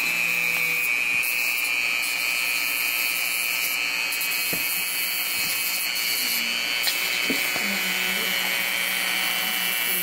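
Small handheld rotary tool running steadily at high speed with a high whine, its sanding cone grinding a wooden toothpick into an imping peg for a replacement hawk tail feather.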